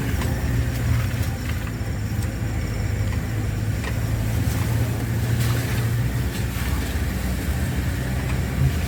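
Vehicle engine running steadily as it drives along a rough track, with a few light knocks and rattles.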